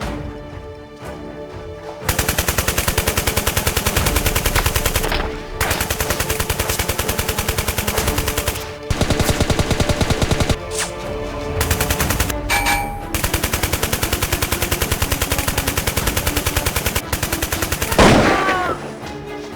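Automatic gunfire sound effects in several long, rapid bursts with short gaps between them, over background music. Near the end the firing stops and a sound effect with falling pitch follows.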